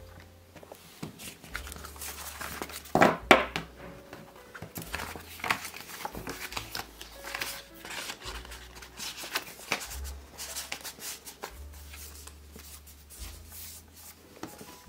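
Paper rustling and light taps as postcards are handled and slid into a paper envelope, with a couple of louder taps about three seconds in.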